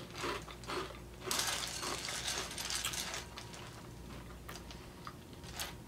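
A metal spoon stirring Cocoa Puffs cereal in milk in a bowl: light clinks and scrapes against the bowl, busiest from about a second in to around three and a half seconds.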